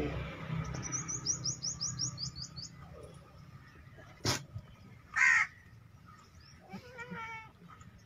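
Bird and animal calls in a goat yard. A quick run of high chirps comes about a second in, then a sharp click a little after four seconds. A loud harsh call follows a little after five seconds, and a wavering pitched call comes near the end.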